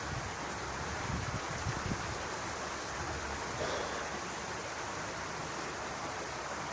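Steady rushing outdoor noise, with low bumps and rumbles in the first two seconds.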